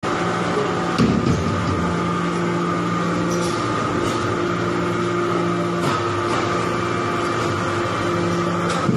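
Hydraulic metal-chip baler running: a steady hum from its pump and motor, with a sharp knock about a second in and another near six seconds.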